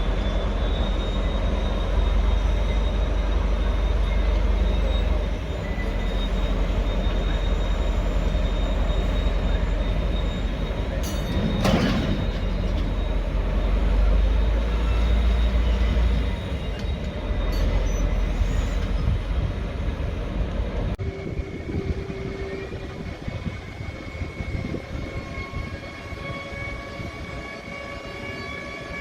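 Train running through the station with a heavy low rumble and rolling noise, and one sharp clank about twelve seconds in. After an abrupt change about two-thirds of the way through, the sound is quieter and holds thin, steady high-pitched squeals from the wheels.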